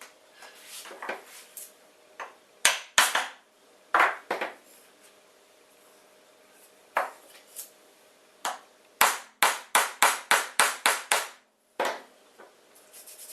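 Sharp knocks of a part being tapped into place with a hammer: scattered single and paired taps, then a quick run of about nine taps at roughly four a second near the end.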